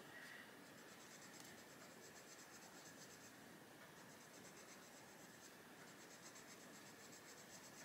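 Faint, steady scratching of a Castle Arts Gold coloured pencil shading on paper in short repeated strokes.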